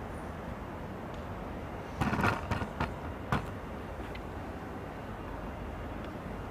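Iaido practitioners moving with their swords over a steady hall background: about two seconds in, a quick run of thumps and swishes, then a single sharp click a second later.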